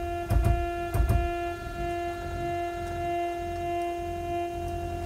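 Stepper motor driving the drill press's knee lift, whining at one steady pitch over a low rumble, with a few sharp clicks in the first second. It is struggling with the load on a 32-volt supply: the extra voltage helps only ever so slightly, so it needs more voltage or a higher-torque motor.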